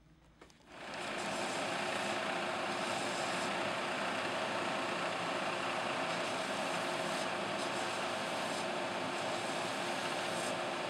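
Belt sander coming up to speed about a second in, then running steadily, with a shoe's heel tip held against the moving abrasive belt to grind it down.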